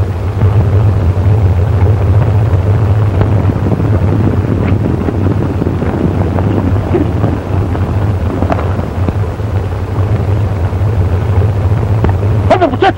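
Steady, loud rumble on an old film soundtrack, with a few rising-and-falling cries about a second before the end.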